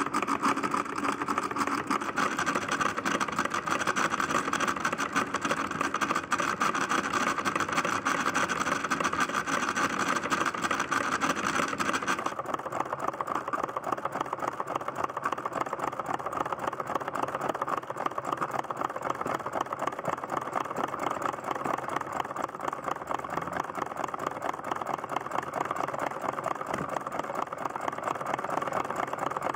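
Small homemade solenoid engine running steadily, a fast even stream of ticks from its solenoid and contact as the flywheel spins and drives a belt line shaft and a small dynamo. The sound turns duller about twelve seconds in.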